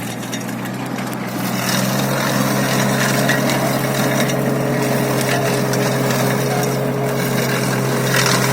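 Atom mini tractor's engine running at a steady speed, driving a stubble shaver, with a rough churning noise over the engine note; the whole sound grows louder over the first couple of seconds, then holds.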